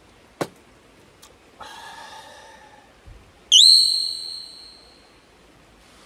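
A bright, high ding, likely an edited-in chime sound effect, about halfway through. It swoops up sharply at its start, then holds one note that fades over about a second and a half. Before it come a single click and a short, buzzy hum.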